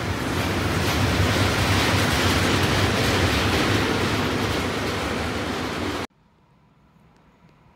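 Freight train of four-axle tank wagons rolling past close by: a steady rumble of wheels on rail as the last wagons go by. It cuts off abruptly about six seconds in, leaving only a faint background.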